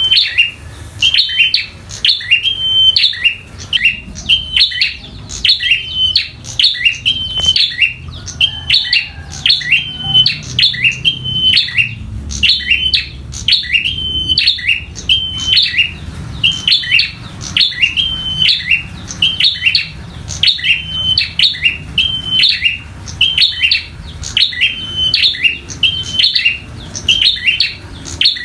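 Prenjak (prinia) giving its fighting call: the same sharp, high chirp repeated over and over at about two a second, without a break. This is the agitated territorial call that keepers use to make their own prenjak sing.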